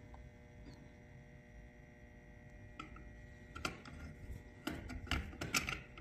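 Faint clicks and scrapes of a new capacitor and its wires being handled and pushed into place in a garage door opener's motor housing, over a faint steady hum. The clicks come in small clusters in the second half.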